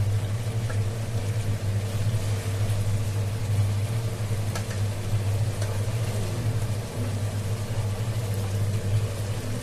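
A steady low hum, with a few faint clinks of a metal slotted spatula against the pan as cooked chicken pieces are lifted out of the oil and masala.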